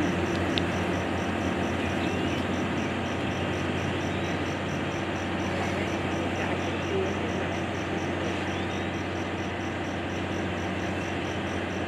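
Steady low mechanical drone over an even background noise, with a faint high pulse repeating a few times a second.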